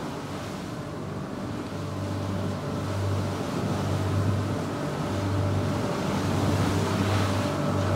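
Motorboat running at speed on open water: a steady low engine drone under the rush of water along the hull and wind on the microphone, growing slightly louder.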